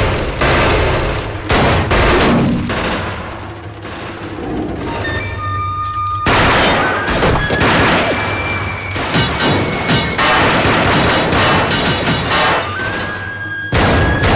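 Action-film gunfight mix: many gunshots from pistols and rifles in irregular volleys, with a film score of held notes underneath. The shots thin out briefly a few seconds in, then come thick again.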